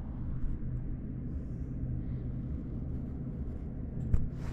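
Honda Africa Twin CRF1100 parallel-twin engine idling steadily, with one sharp knock near the end.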